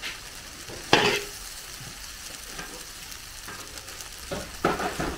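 A metal ladle scraping and knocking against a large metal wok as fried rice is stirred and tossed, with frying going on underneath. The loudest scrape comes about a second in, and two more come close together near the end.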